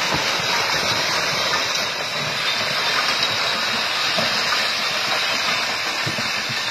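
Landslide debris (earth and rocks) sliding down a steep slope onto a highway: a steady rushing hiss with irregular low rumbling underneath.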